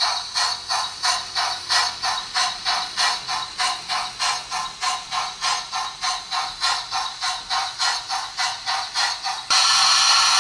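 A model freight train running past, with an even beat of about three strokes a second like a small steam chuff or wheel clicks. Near the end it switches abruptly to a steady, louder noise.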